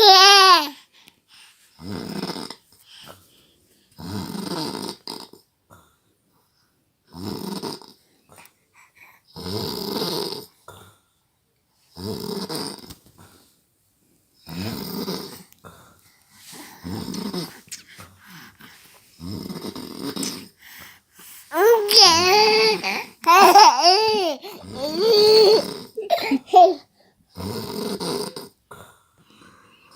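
A man snores in a steady rhythm, one snore about every two and a half seconds. A baby giggles and babbles over it, briefly at the start and again, louder, about two-thirds of the way through.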